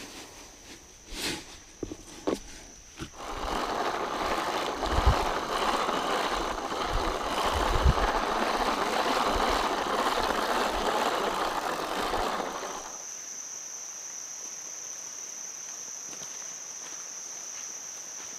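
A rough rustling noise with a few low thumps for about ten seconds. It gives way suddenly to a steady, high insect drone of crickets or katydids.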